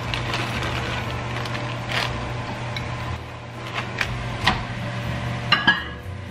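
Frozen rice grains rattling out of a crinkling plastic pouch into a ceramic bowl, with a few light knocks as the bag is shaken. Near the end, a quick pair of sharp clicks as a microwave door is opened. A low steady hum runs underneath.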